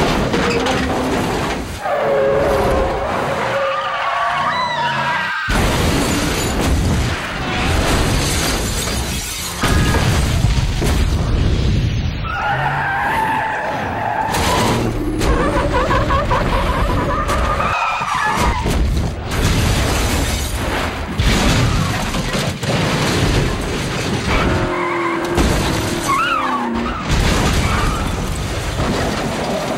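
A rapid run of vehicle-stunt sounds: car engines, several stretches of wavering tyre squeal, and sudden crashes with breaking glass, over background music.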